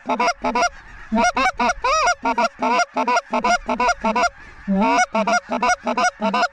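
A goose call blown in rapid honks and clucks, about four a second, many breaking from a low note up to a higher one, calling Canada geese in to the decoys. The calling pauses briefly about a second in and again near five seconds.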